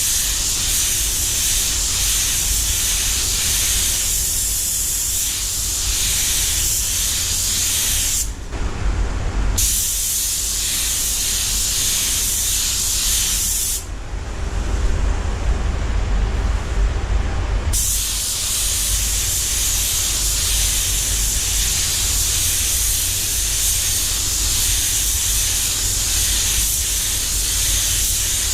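Air spray gun (DeVilbiss DV1) hissing steadily as it lays down metallic base coat, the trigger released twice: briefly about 8 s in and for about four seconds around 14 s in. A steady low rumble runs underneath.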